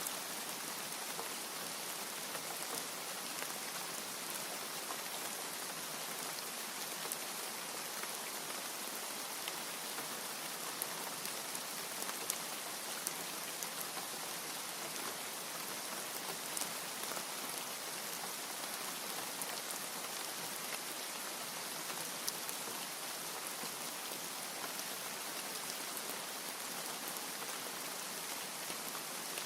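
Steady heavy rain falling, an even hiss with scattered sharper drop impacts.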